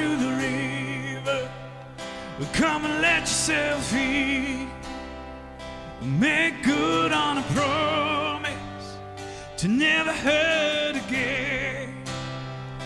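A male vocalist sings a slow worship song over his own acoustic guitar, with a live band's steady low sustained notes underneath. The sung phrases come in about every three to four seconds, with a wavering vibrato on the held notes.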